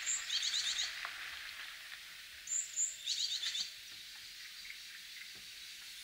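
Brown-eared bulbul calling twice, about two and a half seconds apart: each phrase is a pair of short high notes followed by a quick run of chattering notes.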